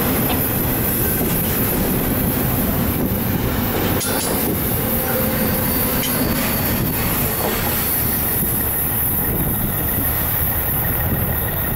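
Double-stack intermodal freight train's last well cars rolling past on steel wheels, a loud steady rumble and clatter with some wheel squeal. The higher part of the noise drops away in the last few seconds as the train recedes.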